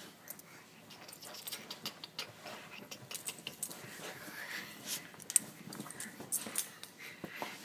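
A dog playing rough with a plush toy and a person's hand: a run of irregular small clicks and rustles, with one sharp click a little past five seconds in.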